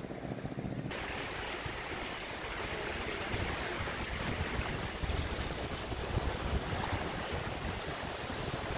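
Flooded, muddy river rushing in full spate, heard as a steady noise of running water, with wind gusting on the microphone. For about the first second a low hum plays instead, which cuts off abruptly.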